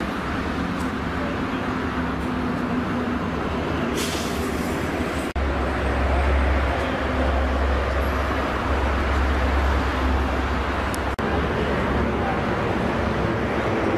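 Steady road traffic noise with a heavy low rumble, broken twice by abrupt cuts. A short hiss comes about four seconds in.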